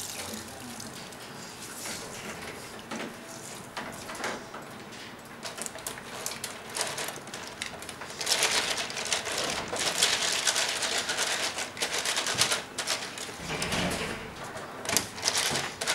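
Water splashing and dripping in a plastic tub as wet crepe paper is squeezed out, then wooden skewers and tongue depressors clattering and sloshing in the water. It gets louder and busier about eight seconds in.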